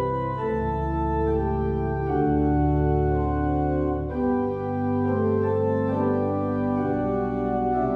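Organ playing slow, sustained chords over a held bass line, the harmony changing every second or two.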